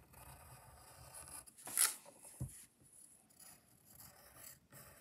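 Coloured pencil scratching faintly on paper as a heart is outlined, with one sharper scrape about two seconds in and a soft knock just after.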